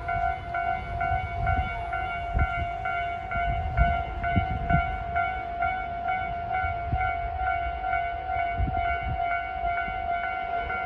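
Japanese railway level-crossing warning bell of the usual Tobu type, a slightly unusual variant of it, ringing a steady electronic ding a bit more than twice a second. An irregular low rumble runs underneath.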